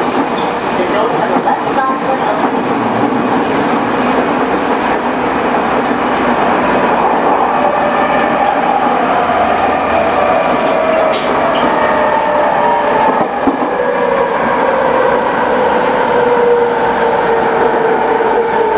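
JR East E217 series electric train running, with steady wheel-and-rail noise. From about halfway through, the whine of its Mitsubishi IGBT-VVVF inverter and traction motors falls steadily in pitch as the train slows.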